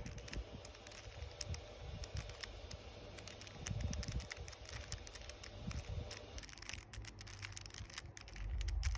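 A plastic 3x3 Rubik's Cube being turned by hand through an algorithm: a run of irregular clicks and clacks as the layers rotate, with low rumbles from the hands gripping it.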